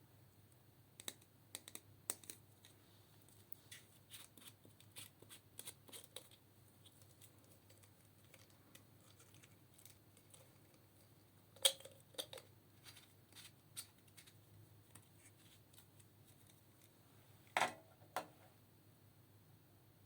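Sparse small clicks, taps and scrapes of makeup and eyeshadow being broken up and handled, with two louder sharp knocks, one about midway and one near the end.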